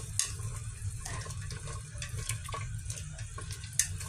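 Soup boiling in a stainless-steel pot, bubbling with small crackles over a steady low hum. A couple of sharp clicks, one near the start and one near the end, come as wooden chopsticks knock against the pot and the food.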